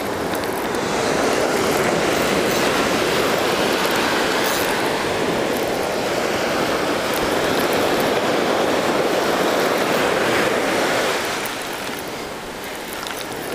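Surf washing up the beach: a steady rush of breaking waves that swells up early and eases off near the end.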